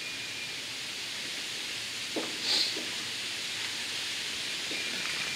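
Steady outdoor background hiss, with one brief sharp sound about halfway through.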